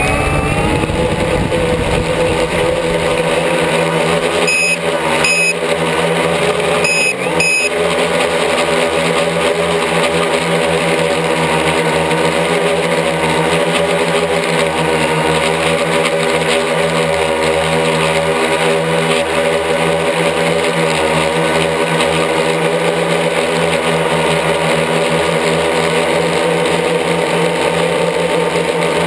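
Quadcopter's electric motors and propellers spinning up, their whine rising in pitch in the first second, then a steady multi-tone hum while the craft flies, heard up close from the camera mounted on it. Two pairs of short high beeps sound about 5 and 7 seconds in.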